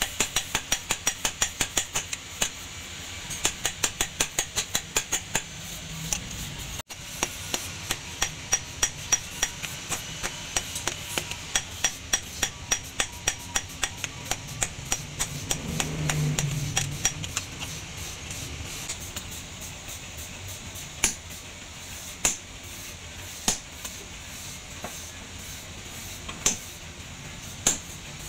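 Hammer blows on a hot leaf-spring steel cleaver blade on an anvil: rapid ringing strikes, about four a second. In the last third they slow to single blows a second or more apart. A brief low hum rises about halfway through.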